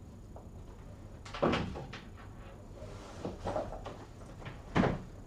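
Three short knocks or bumps of something being handled: one about a second and a half in, a softer cluster about halfway through, and a sharper one near the end. No horn sounds.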